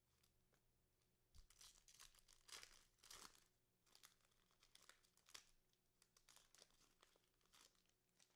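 Faint crinkling and tearing of a trading card pack wrapper being opened, densest about two to three seconds in, followed by scattered light clicks and rustles.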